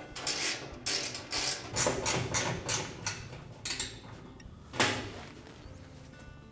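Quick metal clicking and scraping, a few a second, as a 5/16-inch hex-head ground screw is driven into the sheet-metal main top of a washer with a nut driver. One louder knock about five seconds in.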